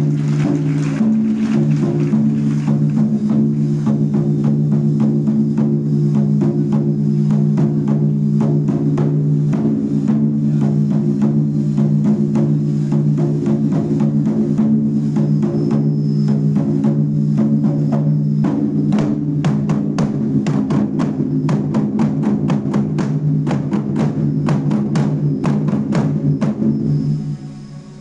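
A primary-school drum ensemble playing live, drum strokes over a steady low drone. The strokes come faster and sharper for the last third, then the playing stops abruptly just before the end.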